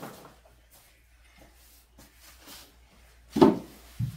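Wall-panelling work in a small room: scattered light knocks and handling noises, then a loud sharp knock about three and a half seconds in, followed by a dull thump.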